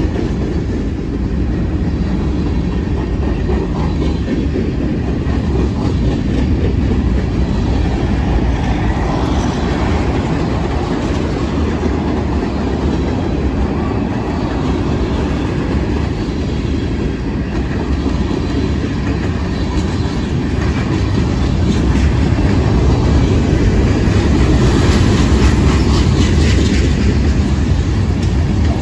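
Freight cars of a mixed freight train rolling past at trackside: a steady rumble of steel wheels on rail, with the clack of wheels over rail joints. It grows a little louder about three-quarters of the way through.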